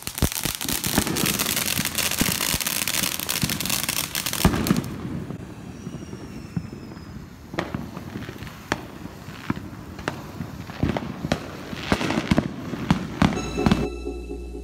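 Ground fountain fireworks spraying with a dense crackling hiss for about the first five seconds, followed by scattered sharp firecracker pops and cracks.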